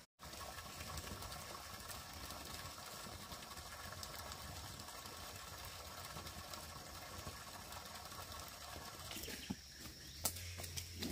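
Steady outdoor countryside ambience with a continuous hum of wildlife. Near the end it changes to a few sharp knocks and footsteps on a dirt forest path.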